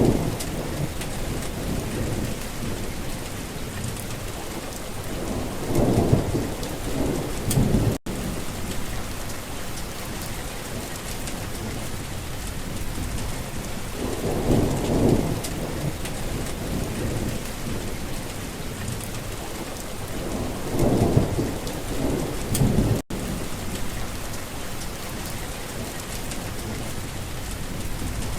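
Steady heavy rain with several low rolling rumbles of thunder, two of them close together about 6 s in, more around 15 s and another pair past 20 s. The sound cuts out for an instant twice.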